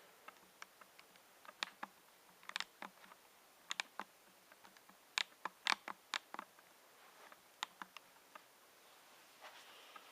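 Irregular light clicks and taps, some in quick clusters, from an HDMI cable and its packaging being handled.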